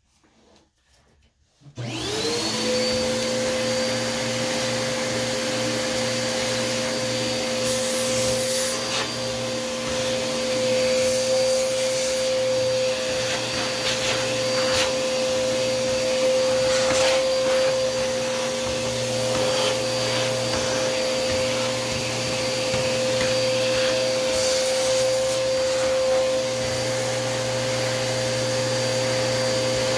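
Vacuum cleaner switched on about two seconds in: its motor whine rises quickly, then runs steadily while the hose nozzle sucks dust from inside an opened desktop computer. A few short knocks and scrapes come through over the hum.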